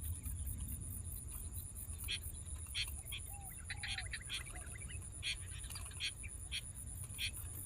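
Scattered short bird chirps and calls, some in quick clusters, over a fast, even insect trill pulsing about five times a second and a steady low rumble.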